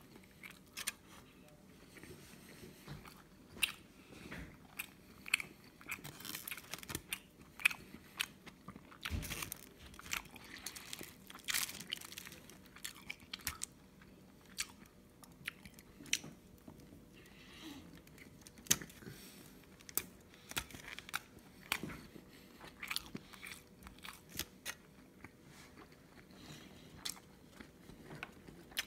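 Close-miked chewing of a spoonful of rice burger, with many short, irregular wet clicks and smacks from the mouth.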